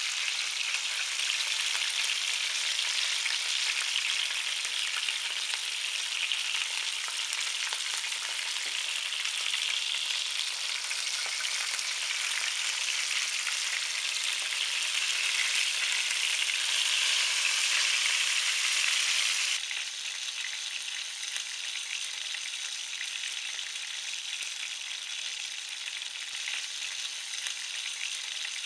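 Sausages frying in hot oil in a frying pan: a steady sizzle with fine crackling. About two-thirds of the way through, the sizzle drops to a quieter level.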